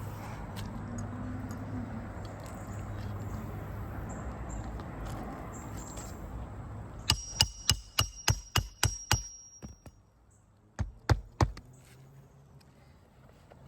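Hammer driving roofing nails through an asphalt shingle: a quick run of about nine sharp strikes with a metallic ring, then three more a moment later, after several seconds of steady low background noise.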